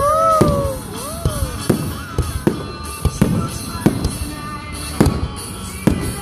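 Fireworks bursting in a string of sharp bangs, about one or two a second, over music playing.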